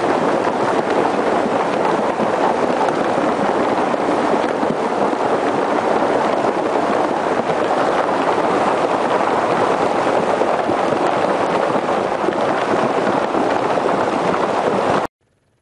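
Muddy floodwater rushing in a fast torrent: a loud, steady roar of water that cuts off suddenly near the end.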